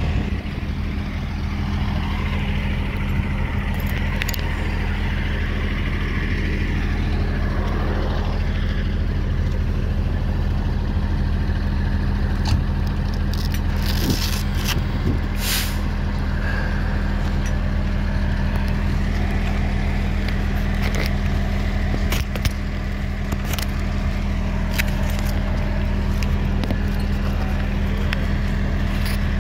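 A vehicle engine idling steadily, a low even hum, with occasional knocks and rustles of things being handled close by.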